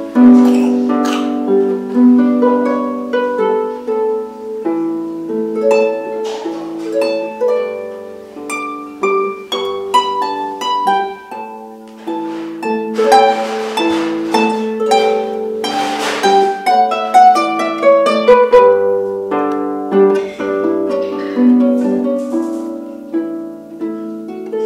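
Wooden harp played solo by hand: plucked melody notes ringing over one another above lower bass notes, with a denser, brighter flurry of notes around the middle.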